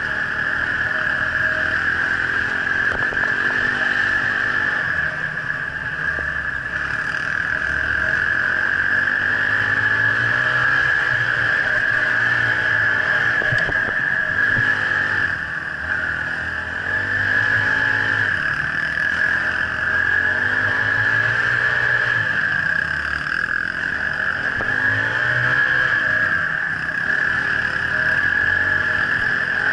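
Dirt bike engine running under way, its note rising and falling every second or two as the throttle is worked along a rough dirt trail, over a steady high-pitched hiss.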